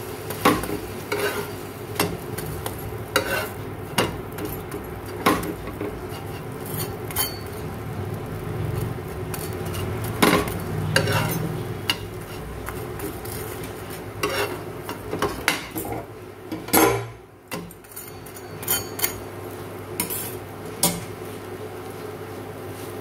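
Buttered bread slices frying on a nonstick tawa, with a steady light sizzle. A spatula taps and scrapes against the pan at irregular moments as the slices are pressed and turned, with a louder clatter about 17 seconds in.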